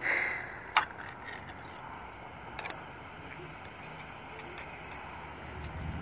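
Pull-tab lid of a metal can of boiled peanuts being pried open by hand. One sharp metallic click comes just under a second in, then a smaller double click a couple of seconds later, over steady background hiss. A low rumble rises near the end.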